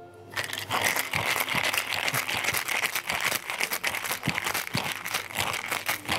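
Ice rattling hard in a metal cocktail shaker shaken vigorously, a fast dense clatter that starts about half a second in and keeps going without a break: the cocktail being shaken to chill and mix it.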